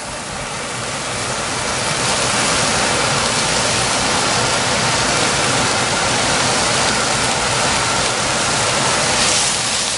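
Shredded baby bok choy sizzling loudly in hot oil in a pot with onion, garlic and red pepper. The sizzle swells over the first couple of seconds, then holds steady.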